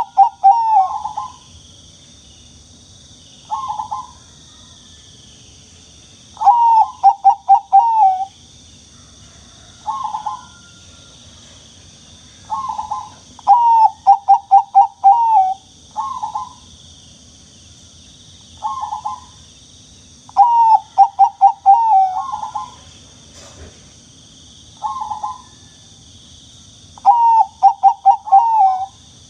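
Zebra dove (perkutut) cooing: single short coos alternate with phrases of four or five quick rolling coos, repeated every few seconds.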